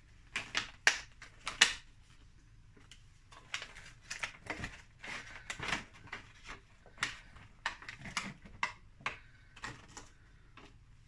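Clear plastic strawberry punnet crackling and clicking as strawberries are lifted out by hand and set down on newspaper. The clicks come irregularly, the loudest in the first two seconds.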